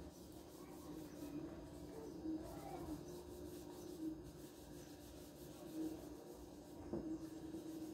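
Faint rubbing of a hand over drawing paper, blending graphite shading, over a faint steady hum.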